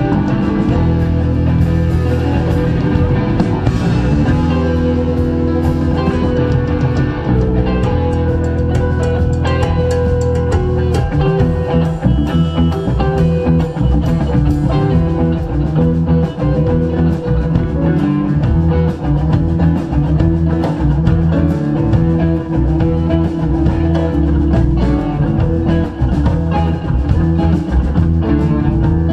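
Live rock band playing: amplified electric guitars, bass guitar and drum kit, with regular drum hits throughout.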